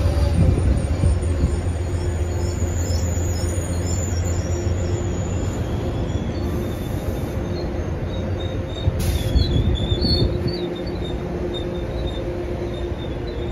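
Amtrak Lake Shore Limited passenger cars rolling past at low speed on curved track: a steady low rumble of wheels on rail, with a brief high wheel squeal and a sharp clank about nine seconds in.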